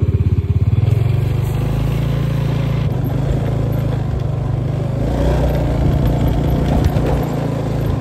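Motor scooter's small engine running while being ridden, a steady low drone whose note shifts about five seconds in.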